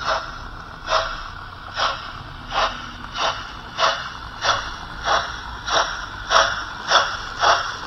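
Model Class 39 steam locomotive's sound module playing exhaust chuffs as it pulls its train, the puffs quickening from about one a second to nearly two a second.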